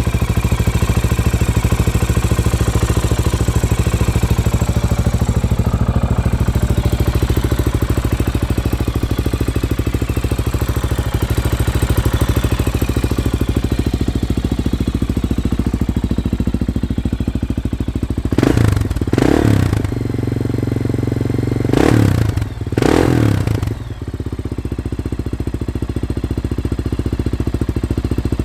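Honda XR400's air-cooled single-cylinder four-stroke engine idling steadily. Near the end it is revved in two pairs of quick throttle blips.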